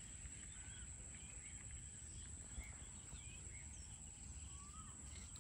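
Faint outdoor ambience: scattered short bird chirps over a low, steady background noise, with a thin, steady high-pitched tone.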